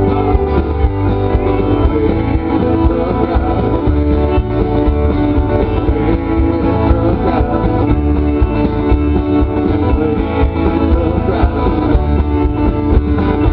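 Live country music led by electric guitar, an instrumental passage with steady full-band sound and no singing.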